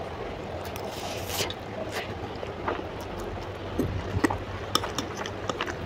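Close-up eating sounds of Maggi instant noodles: chewing and small wet mouth clicks, with light clicks of a metal fork against the plate, coming thicker in the second half.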